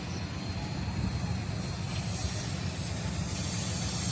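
Hitachi diesel-electric locomotive approaching at the head of a passenger train, its engine a steady low rumble that grows a little louder about a second in.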